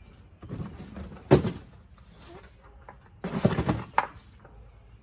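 Cardboard boxes being handled: a sharp thump about a second in, then a longer rough scraping and rustling a few seconds in that ends in a click.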